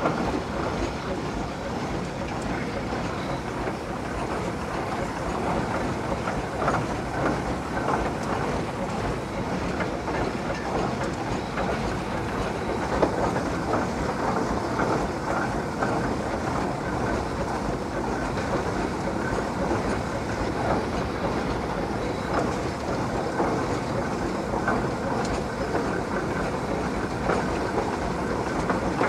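Steam traction engine running as it travels, with a steady mechanical clatter from its engine, gearing and steel lugged wheels.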